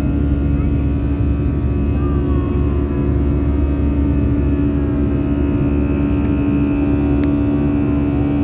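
Aeroplane engines running steadily during takeoff: a loud, even rumble with a constant hum.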